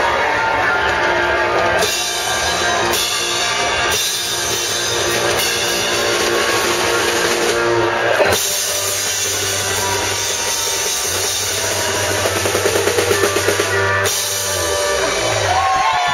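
Live band playing loud, up-tempo rock-style music on drum kit, bass and guitar, with a quick drum fill near the end.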